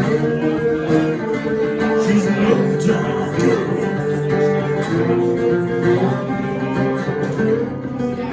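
A live band playing a guitar-led instrumental passage of a blues song, with steady chords and no lyrics sung.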